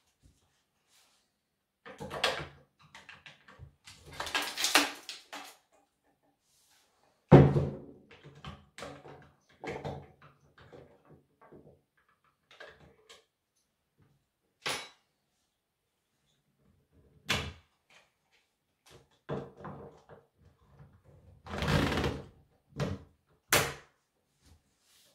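Handling noises of a Husqvarna chainsaw being worked on at a table covered in plastic sheeting: scattered knocks and rustling, a heavy thump about seven seconds in, and several short sharp clicks in the second half.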